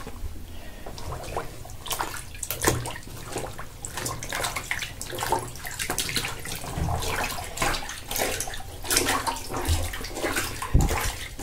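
Heavy wet canvas drop cloth being sloshed and squeezed by hand in a bathtub of coffee dye: irregular splashes and swishes of water.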